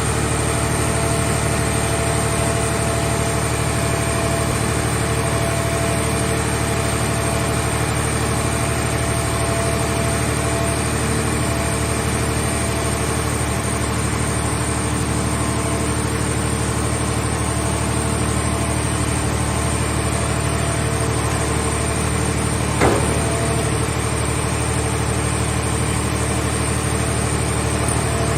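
Hydraulic scrap car baler's power unit running steadily, its engine and pump holding a constant pitch, with one short clank about 23 seconds in.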